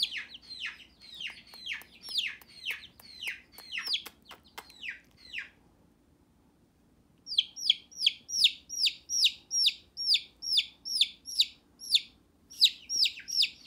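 Baby chicks peeping: a rapid string of high, downward-sliding peeps about two a second. They break off for about two seconds midway, then start again.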